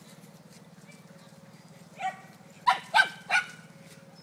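Puppy barking: one short bark about two seconds in, then three sharp barks in quick succession near the end, over a low steady background hum.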